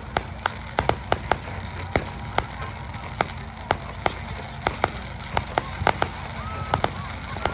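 Fireworks going off in an irregular series of sharp pops and bangs, several a second, over a steady low rumble.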